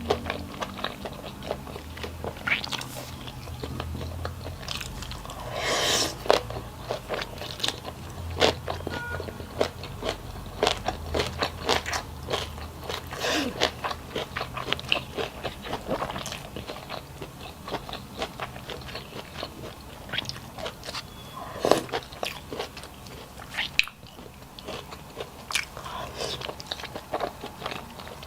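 A person chewing and biting food close to the microphone, with many quick crunches and mouth clicks.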